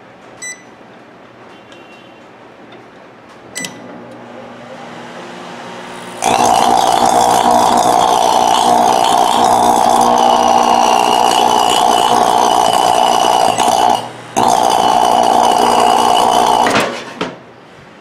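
Sharp Carousel microwave oven running with its case off: a click and a low hum as it starts, then about six seconds in a very loud, harsh arcing buzz as it sparks, breaking off for a moment near fourteen seconds and stopping about seventeen seconds in. The arcing comes from a damaged, burnt-through waveguide cover sparking back to the magnetron.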